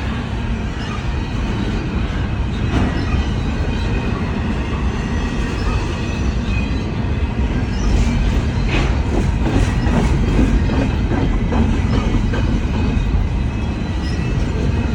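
CN freight train's cars rolling slowly past with a steady low rumble of steel wheels on rail. Short clicks of the wheels passing over rail joints come through about halfway in.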